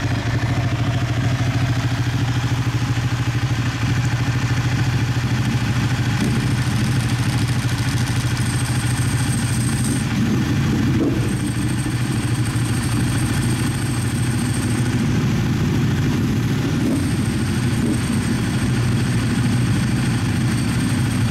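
Ducati L-twin motorcycles idling steadily together, no revving, the nearest a 1199 Panigale S with its Superquadro twin.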